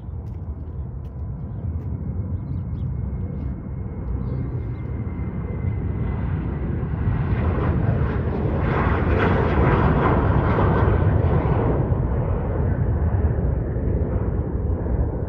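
Jet engines of a Sun Country Boeing 737 at takeoff power as it lifts off and climbs past. The roar swells, is loudest about nine to eleven seconds in, then slowly fades.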